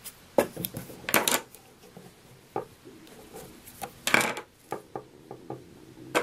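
Light clinks and taps of small tools being set down and picked up on a tabletop: scissors that have just cut the yarn and a large blunt yarn needle. There are a few scattered knocks, with the loudest cluster about four seconds in, over soft handling rustle.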